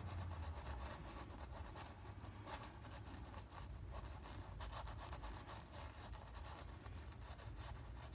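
Faint, intermittent rubbing and scratching of a paintbrush on canvas over a low room hum.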